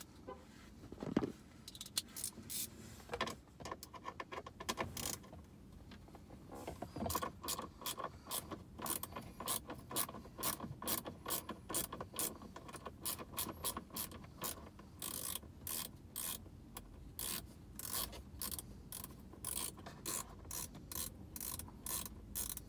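Hand ratchet with a T25 Torx bit clicking in short back-and-forth strokes as it backs out a dash-panel screw. The clicking settles into an even rhythm of about two strokes a second from about seven seconds in, after a few scattered handling knocks.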